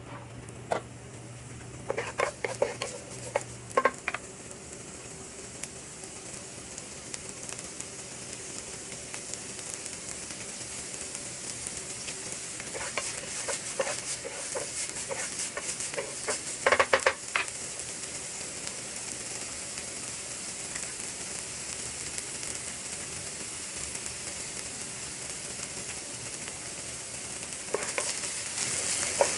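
Diced onion sizzling in vegetable oil in a nonstick frying pan, the sizzle slowly growing louder. A wooden spatula scrapes and knocks against the pan in short clusters of strokes, a couple of seconds in, again around the middle, and near the end.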